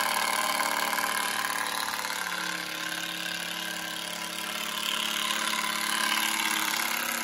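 Cordless drill running steadily under load as it drives a screw into a wooden stair stringer, its motor note shifting slightly a couple of seconds in.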